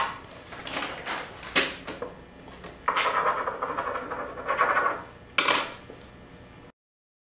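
Scattered light knocks and clatter of a pen and papers being handled on a table; the sound cuts to dead silence about six and a half seconds in.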